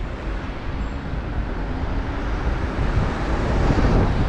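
City street traffic noise with wind buffeting the microphone, growing louder about three seconds in.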